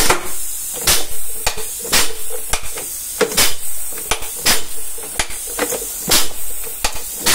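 ZF truck gearbox shifted by hand through its gears out of the truck: a dozen or so sharp metallic clunks, one to two a second, as the lever throws the selectors into each gear, over a steady high hiss.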